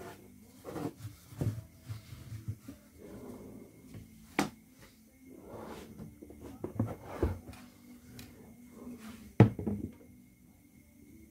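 Handling noises: irregular knocks and clunks of hard objects being picked up and set down, with a sharp click a little before halfway and the loudest knock near the end, over a faint steady hum.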